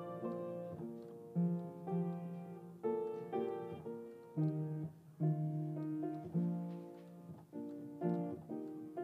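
Slow piano music: chords struck every half second to a second and a half and left to ring and fade.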